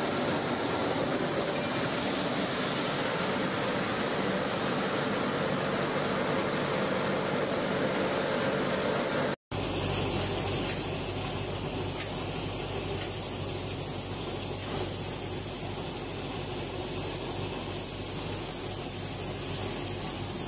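Small automatic flour mill running, a steady mechanical hum and whir. It drops out for a moment about halfway, then carries on as a steady high hiss over a low hum.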